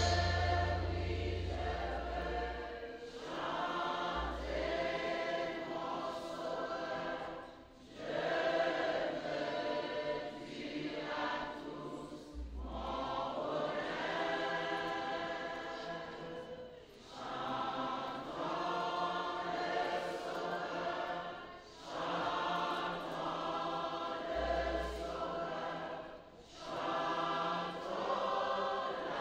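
Church choir singing a gospel song in long phrases with short breaks between them, with a few deep low thumps underneath.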